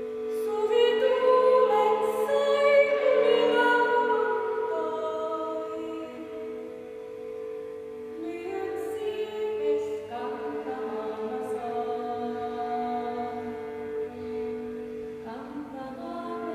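A woman sings over a jouhikko (a bowed, horsehair-strung Finnish lyre), which holds a steady drone beneath the voice. The singing is loudest in the first few seconds, then continues more softly.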